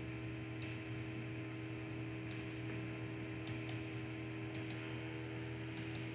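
Computer mouse clicking: about eight sharp clicks, several in quick pairs, over a steady electrical hum.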